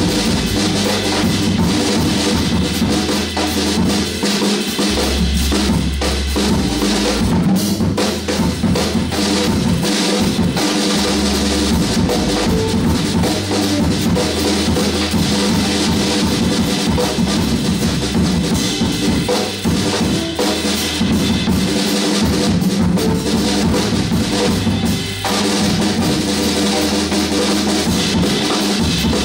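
A Sonor drum kit played live in a continuous groove of kick drum, snare and cymbals, over a backing track whose deep bass notes hold and change pitch every few seconds.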